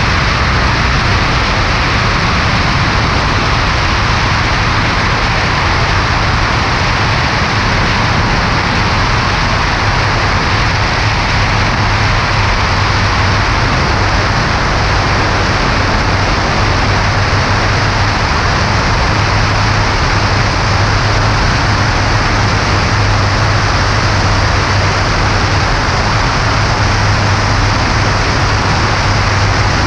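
Cessna 140A light plane in flight: a steady mix of engine and propeller with loud wind noise, including a constant low hum. It stays even throughout, with no change in power.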